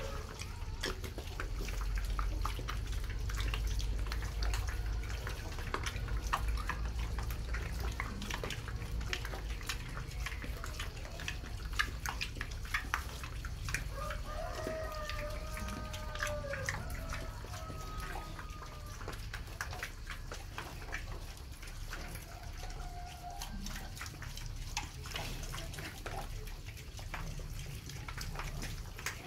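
A sow and her piglets eating together: a steady scatter of wet smacking and chewing clicks.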